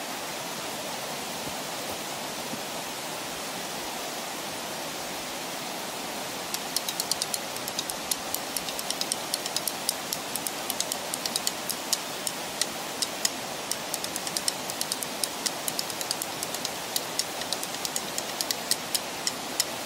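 Drumsticks tapping out quick, irregular rhythms on rock, sharp clicks starting about six seconds in, over the steady rush of a snowmelt stream cascading down a rocky channel.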